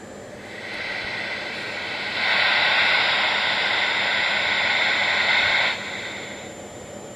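CB radio receiver hiss from the speaker on AM, with no signal on the channel. It rises as the volume is turned up, steps louder, holds steady, then drops suddenly as the volume is turned back down.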